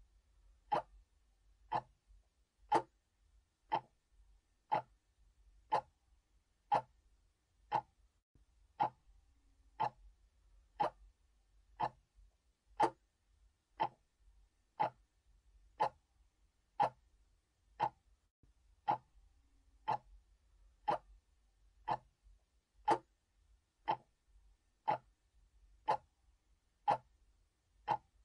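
Clock ticking steadily, about one sharp tick a second.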